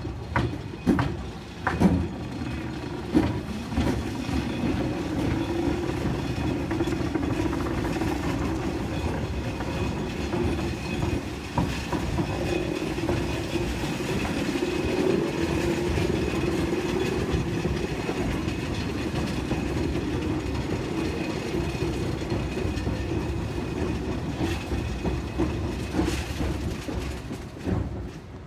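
Railroad turntable turning under riders, a steady rumble of the moving bridge with a few clanks in the first few seconds and another near the middle.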